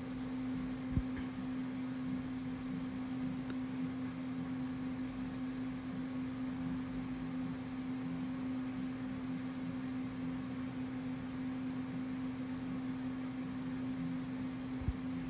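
Steady low electric motor hum from a tumbler cup turner, one even tone throughout, with two soft knocks, about a second in and near the end.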